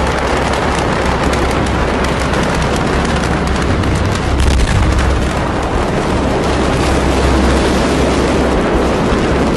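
A large warehouse fire burning, heard as a loud, continuous rough crackle with rapid pops over a deep rumble.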